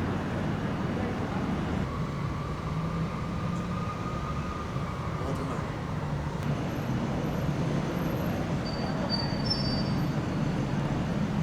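Steady street traffic noise: the low rumble of passing vehicles.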